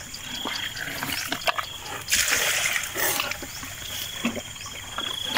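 Wet splashing and dabbling in shallow water and mud, loudest for about a second near the middle, with a few scattered small taps.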